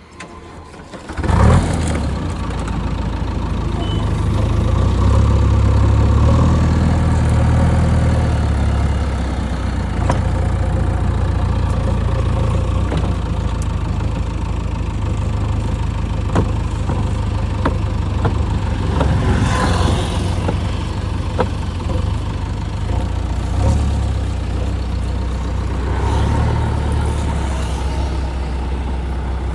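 JCB 3DX backhoe loader's diesel engine comes on suddenly about a second and a half in and runs steadily, swelling louder a few times.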